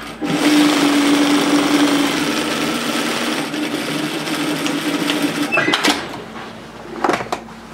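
Industrial straight-stitch sewing machine running steadily as it sews a seam, stopping about five and a half seconds in, followed by a couple of short clicks.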